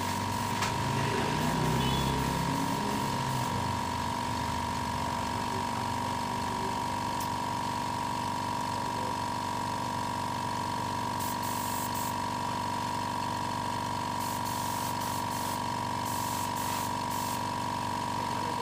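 Compressed-air spray gun spraying clear coat onto a bike frame, its hiss coming in short bursts as the trigger is pulled for each pass, over the steady whine of the air compressor feeding it. A low rumble swells and fades in the first few seconds.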